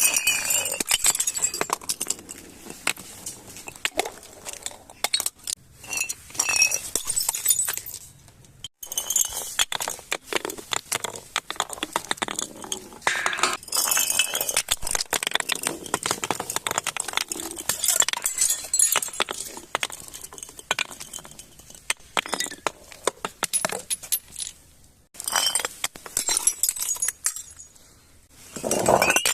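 Broken glass clinking and crunching: many quick, sharp clinks and crackles of glass pieces being crushed and knocked together, with two short pauses.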